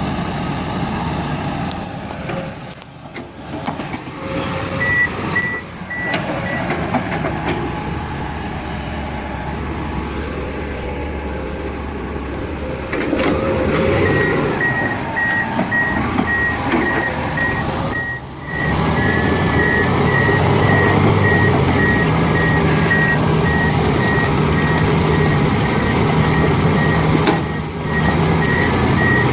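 Heavy equipment's engine running under load, joined by a reversing alarm beeping rapidly at one steady pitch, briefly about five seconds in and then without a break through the second half.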